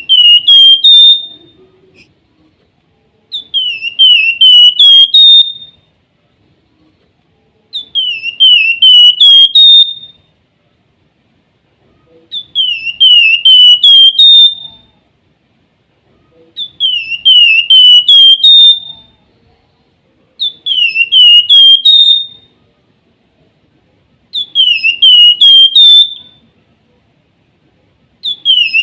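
Javan fulvetta (flamboyan) singing its whistled 'nyiul' song: the same short phrase of four or five swooping whistle notes, climbing to a higher final note, repeated about every four seconds.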